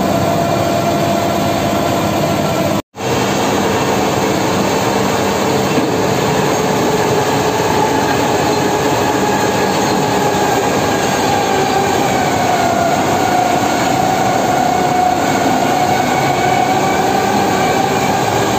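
Heavy hydraulic machinery running steadily at close range: the diesel engine and hydraulics of a Sany SR150C rotary drilling rig, with an excavator working beside it. A continuous drone carrying whining tones that drift slightly in pitch, broken by a momentary dropout about three seconds in.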